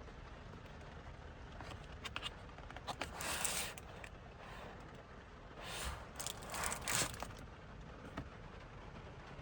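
Car driving, with a steady low road rumble and two brief hissing swells a few seconds apart, the louder near the end.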